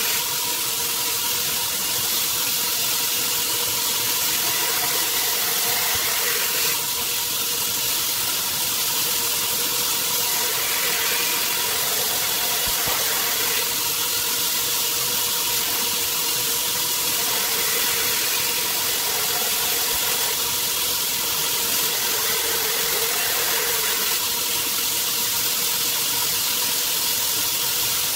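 Belt grinder running steadily while a steel knife blade is ground freehand against its abrasive belt to cut the bevel: a high hiss over a steady motor hum, the grinding sound shifting every several seconds as the blade is worked along the belt.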